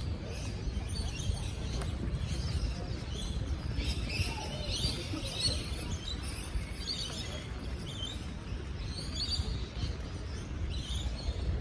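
Many birds chirping and calling together in the trees, dense short high calls over a steady low rumble.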